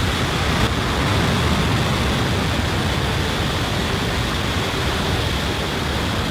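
Falcon 9 rocket's nine Merlin engines at full thrust just after liftoff: a loud, steady rushing noise.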